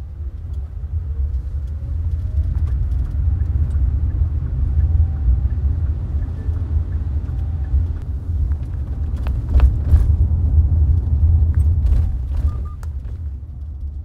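Steady low rumble of a moving vehicle, with a faint rising tone in the first few seconds and a few sharp clicks about nine to ten seconds in.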